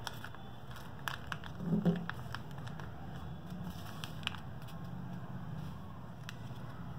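Lined notebook paper being folded and pressed into creases by hand, giving scattered soft crackles and clicks. A brief low bump comes just before two seconds in, and a steady low hum runs underneath.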